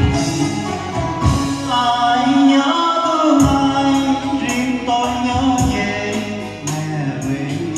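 Live performance of a slow Vietnamese ballad: a man singing long, gliding phrases into a handheld microphone over band accompaniment with light percussion.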